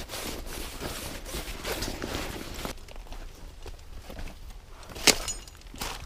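Rustling as gear is handled at a backpack, then footsteps crunching on a dirt and gravel trail, with one sharp click about five seconds in.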